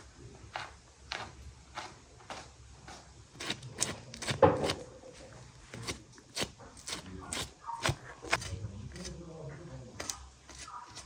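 Knife trimming silverskin and fat from a raw beef leg on a wooden board: irregular sharp clicks and wet tearing as the membrane is cut and pulled away, with a brief pitched sound about four and a half seconds in.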